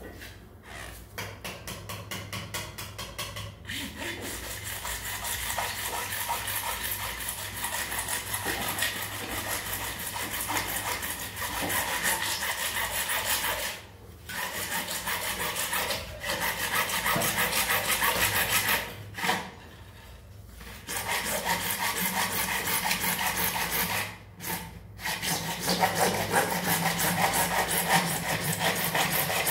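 A bare hacksaw blade, held in the hand, sawing back and forth through an orange plastic drain pipe at floor level to trim it flush with the floor. The sawing stops briefly three times, the longest pause lasting about a second and a half.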